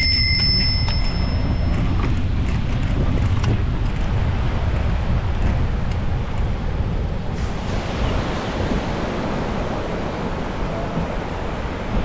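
Wind buffeting the microphone while cycling, over a steady wash of surf. A bicycle bell's ring fades out in the first couple of seconds.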